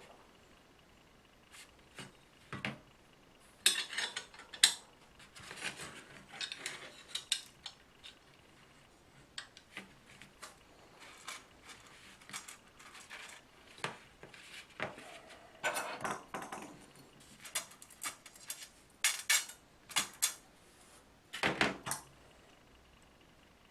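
Hard metal parts being handled: irregular clinks, clicks and short clattering rattles, loudest about four, sixteen, nineteen and twenty-one seconds in.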